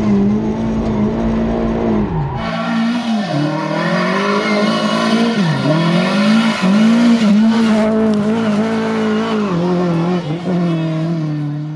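Lada rally car engine at high revs. It is heard from inside the cockpit with a heavy low rumble at first, then from the roadside after about two and a half seconds. The note drops sharply in pitch on lifts and gear changes a little after three and five and a half seconds, climbing again between them.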